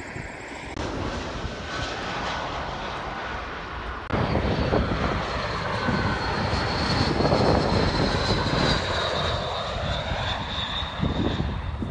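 Embraer E-Jet twin-turbofan regional airliner on final approach with its gear down, passing close by. Its engines give a steady jet roar with a high whine, which swells about midway and then slides slightly lower as the jet moves away.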